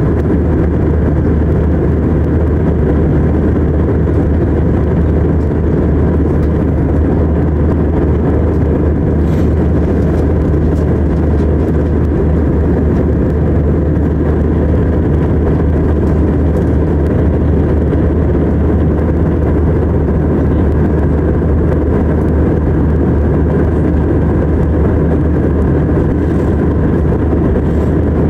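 Jet airliner cabin noise in flight: the engines and the rush of air heard from inside the cabin, a steady low drone that does not change.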